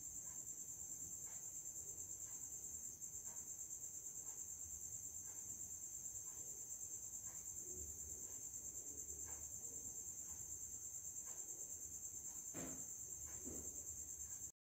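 A cricket trilling steadily, a continuous high pulsing tone, with faint soft knocks about once a second; the sound cuts off abruptly just before the end.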